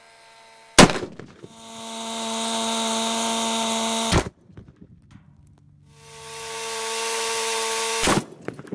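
A .50 cal rifle shot with an armor-piercing incendiary round hitting a running Homelite chainsaw: one very loud sharp bang about a second in. A two-stroke chainsaw engine runs at full throttle with a steady high whine, swelling up and cutting off abruptly twice. Another sharp bang comes near the end.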